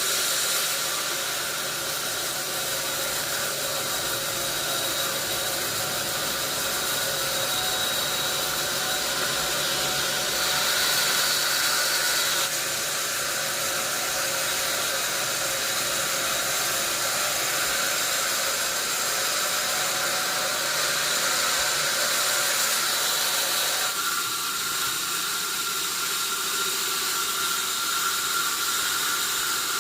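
Sawmill saw cutting through a wadang log: a steady hissing whine with a few held high tones. The tone shifts abruptly about twelve and twenty-four seconds in.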